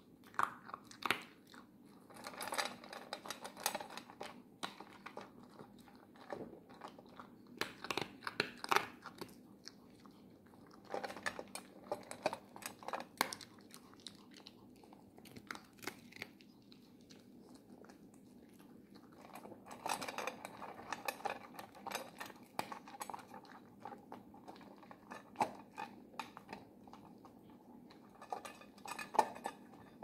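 Miniature poodle crunching dry prescription kibble, in bursts of chewing broken by short pauses.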